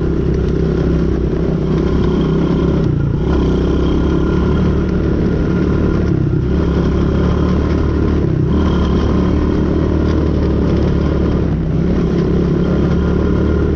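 Quad bike (ATV) engine running steadily while ridden slowly, easing off briefly about four times.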